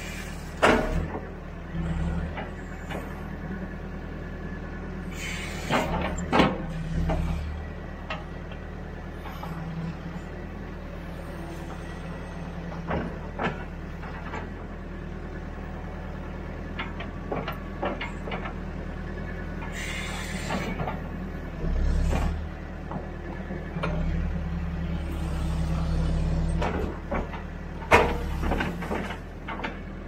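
Backhoe diesel engine running steadily as the hydraulic boom and bucket work, pulling harder in several surges. Sharp metal clanks come from the boom and bucket, the loudest near the end, and two brief hissing rushes come about five and twenty seconds in.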